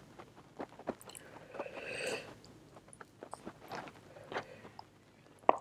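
Close-up eating sounds: soft wet clicks and smacks of chewing and of fingers tearing chicken pieces in thick butter-chicken gravy, scattered and quiet.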